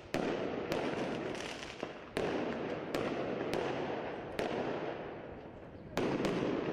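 A string of about eight sharp bangs from small explosive devices, spread unevenly through several seconds. After most bangs comes a loud rushing noise that dies away before the next one.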